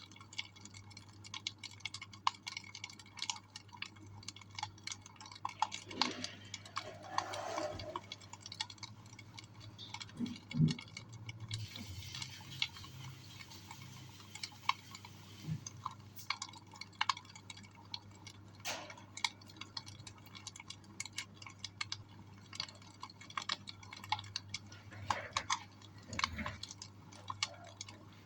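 Wood fire in a fireplace crackling, with irregular sharp pops and snaps over a low steady hum.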